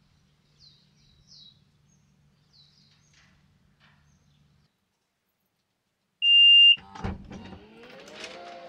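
Faint bird chirps, then after a short silence a loud, high electronic beep lasting about half a second. A thump follows, then a motor that rises in pitch and settles into a steady whine with irregular crackling over it.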